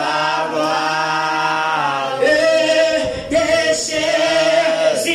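Voices singing a church hymn, holding long notes that slide between pitches, with a short break about three seconds in.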